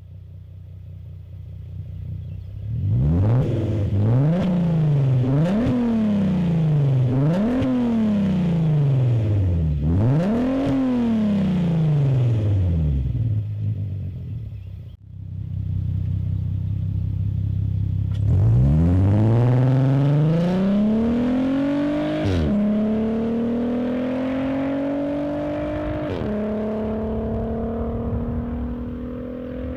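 A 2007 Volkswagen Passat's 3.2-litre VR6 engine through a Varex valved aftermarket exhaust. It is revved about four times in quick succession, then settles at a steady idle. Then it pulls hard under acceleration, with its pitch climbing and dropping sharply twice at upshifts.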